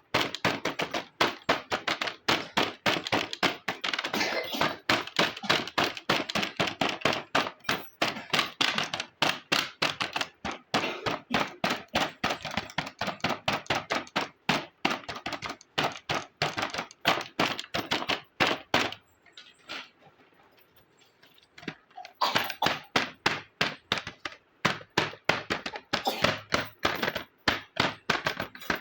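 Small hard plastic toy kitchen pieces clicking and tapping as they are handled and set down, several quick clicks a second, with a pause of about three seconds two-thirds of the way through.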